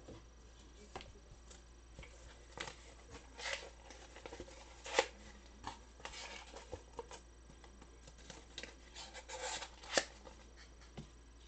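Allen & Ginter baseball trading cards being handled and sorted by hand: light taps and short rustling slides of card against card, with two sharper clicks about five and ten seconds in.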